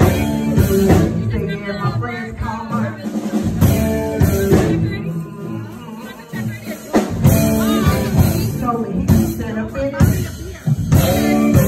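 Live band playing with a drum kit while a woman sings lead into a microphone, amplified through the PA.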